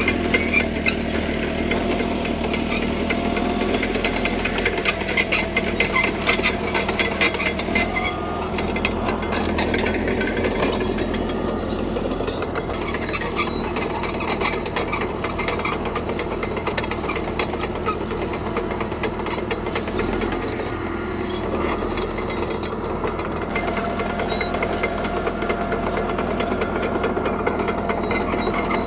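CAT D3K crawler bulldozer working gravel: its diesel engine runs steadily under the rapid clanking rattle of its steel tracks, the rattle heaviest a few seconds in.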